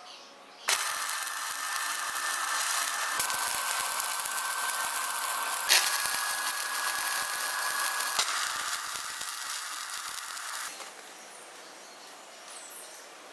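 Stick (arc) welding on steel: the electrode's arc crackles and sizzles steadily, starting suddenly about a second in and stopping near the end, its tone shifting abruptly a few times along the way.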